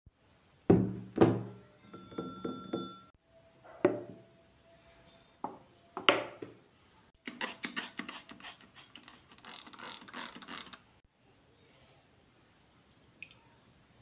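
A ceramic bowl is set down on a marble countertop with two sharp knocks and a brief ring, followed by a couple more knocks. Then a trigger spray bottle squirts rapidly and repeatedly for about three and a half seconds.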